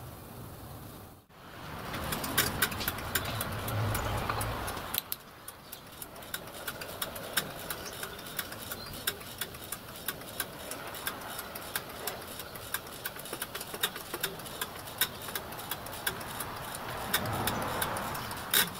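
Water poured from a jug through a funnel into a miniature steam locomotive's boiler. After a break about a second in, the locomotive's hand pump is worked to fill the boiler brim-full for a hydraulic pressure test, with repeated sharp clicks, about one or two a second, over a steady rushing.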